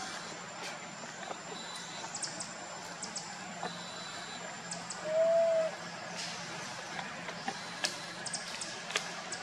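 Outdoor forest ambience with scattered faint clicks and high chirps, and one short call that rises and falls in pitch about five seconds in, the loudest sound.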